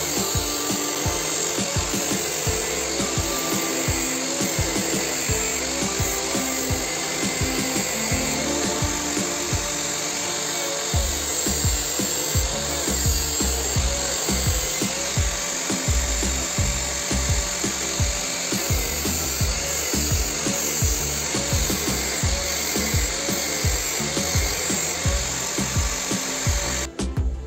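Bench-mounted angle grinder's abrasive disc grinding a steel knife blade, a steady hiss of disc on metal, mixed with background music with a steady beat. The grinding stops near the end.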